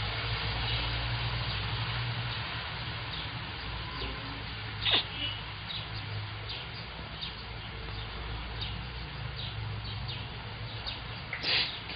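Outdoor street ambience: a steady background rush with a low traffic hum, and birds chirping in short falling notes throughout. Two louder falling cries come about five seconds in and near the end.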